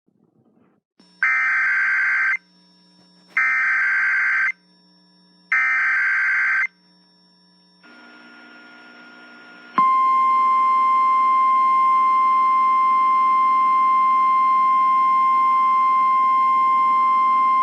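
Emergency Alert System SAME header: three bursts of warbling digital data, each about a second long with a second's gap between them. After a short pause with a faint hiss, the 1050 Hz weather radio warning alarm tone starts about ten seconds in and holds steady.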